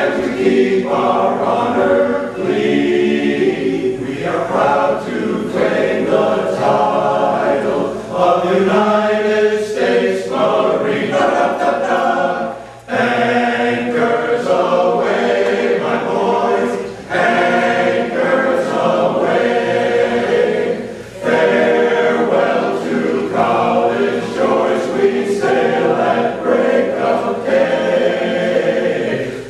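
A men's barbershop chorus singing a cappella in close harmony. The singing comes in long phrases with brief breaks for breath between them.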